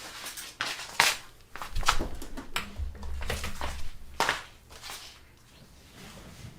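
A string of sharp knocks and clattering, with two louder cracks about a second in and near four seconds, and a low rumble about three seconds in, dying away toward the end.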